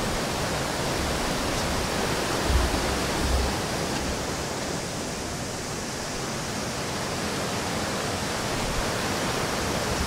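A river waterfall rushing steadily over rocks, with a brief low rumble about two and a half seconds in.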